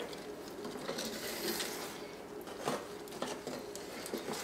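Wooden spoon stirring caramel sauce at a simmer in a stainless steel saucepan: soft bubbling and scraping with a few light knocks of the spoon against the pan.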